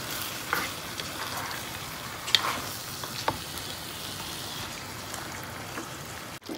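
Chicken and vegetables sizzling in a hot frying pan while being stirred, with a few sharp knocks of the stirring utensil against the pan.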